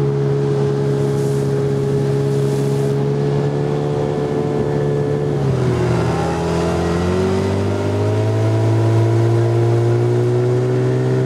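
Small outboard motor on an inflatable boat running steadily under way. Its note drops about halfway through as the throttle is eased, then climbs back up.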